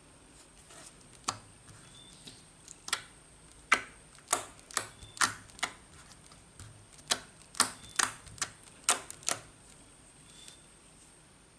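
A series of sharp, irregular clicks or taps, about fifteen in all, coming thickest in the middle, with a faint steady high-pitched whine behind them.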